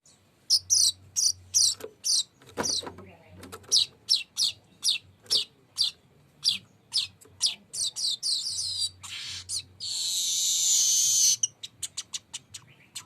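Weaver bird (burung manyar) singing: a quick series of sharp, high, downward-sliding chirps, then, about ten seconds in, a dense buzzing trill held for about a second and a half, followed by more rapid short chirps.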